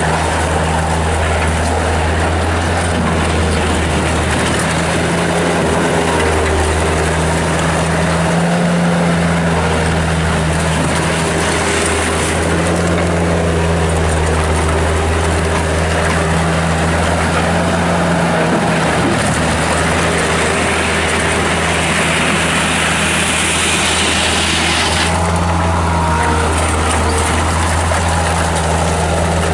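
Bobcat 763 skid steer loader's Kubota diesel engine running steadily while the machine is worked. Near the end, a higher rushing noise builds over a few seconds and then cuts off suddenly.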